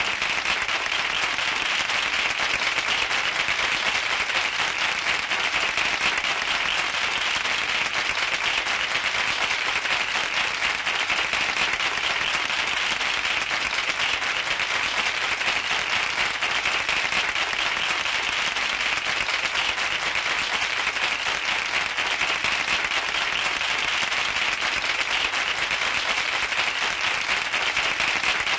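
Studio audience applauding: dense, steady clapping with no break.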